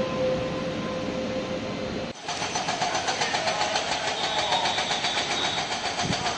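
Taiwan Railway EMU3000 electric multiple unit running through the station without stopping: a fast, even clatter of wheels on the rails over a steady hum. About two seconds in, an edit cuts abruptly from the steady hum of the previous train.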